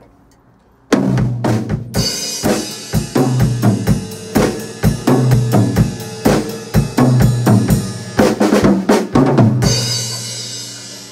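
Drum kit played: a groove of bass drum, snare and cymbals starting about a second in, with a busier run of strokes near the end. It finishes on a cymbal crash left ringing and fading away.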